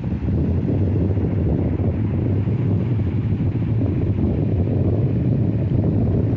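Sea waves and surf, a steady low rumble without let-up.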